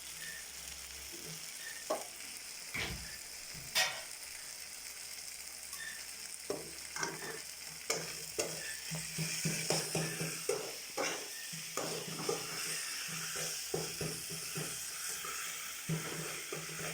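Onion-tomato masala sizzling in a pan while a spatula stirs it, scraping and clicking against the pan. The stirring strokes come now and then at first and quickly and steadily from about six seconds in.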